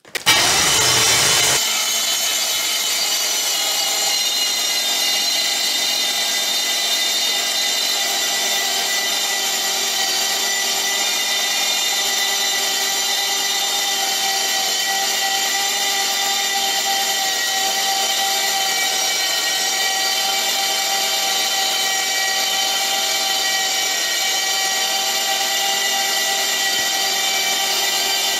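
Starter motor of a BMW M70 5.0-litre V12 cranking the engine on battery power alone, with no fuel or ignition, so the engine turns over without firing. It is a steady whir with several held tones; it cuts in suddenly, louder for the first second and a half as the starter engages, then runs at an even pitch and level.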